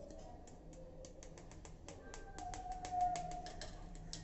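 Knife cutting steamed dhokla in its pot, the blade clicking sharply and irregularly against the pot several times a second.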